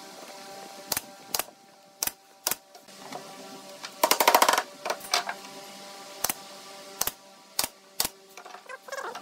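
Pneumatic nail gun firing into pine boards: single sharp shots every half second to a second, and a rapid rattling run of shots about four seconds in, the loudest part.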